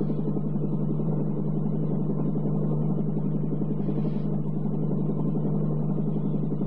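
Cartoon sound effect of an aircraft engine, a steady low drone that holds at one pitch and level throughout.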